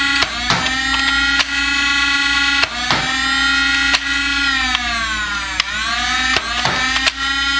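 Nerf Alpha Strike Flyte CS-10's electric flywheel motors held revved in a steady whine while darts are fired in quick succession, about ten sharp shots. After each shot the whine's pitch sags and then climbs back as the flywheels spin up again.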